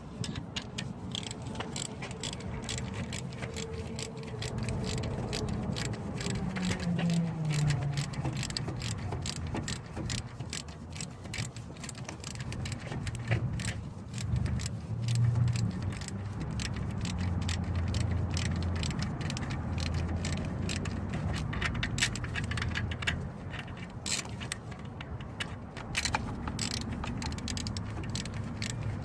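Ratchet wrench clicking in runs of rapid ticks while bolts are worked on during the alternator refit, with small metal tool clinks and a low rumble underneath.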